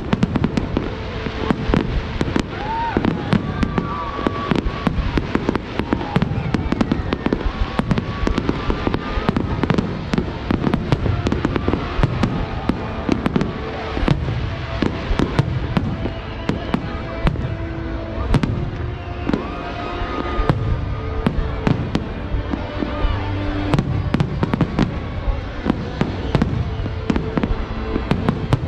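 Large fireworks display: a dense, unbroken barrage of shell bursts and crackle, many bangs a second.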